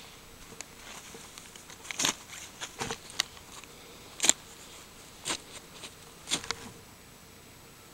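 Camera handling noise: a few short, irregular rustles and clicks of the jacket and pack straps brushing the camera, the loudest about four seconds in, over a low hiss.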